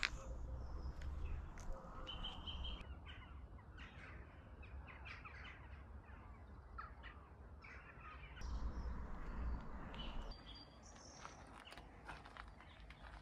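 Faint outdoor ambience of birds calling now and then, with low wind rumble on the microphone at times.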